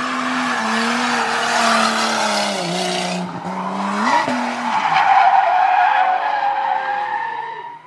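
Drift car sliding sideways: the engine held at high revs, its note dipping briefly twice, while the rear tyres squeal and hiss continuously, loudest in the second half. The sound dies away sharply near the end.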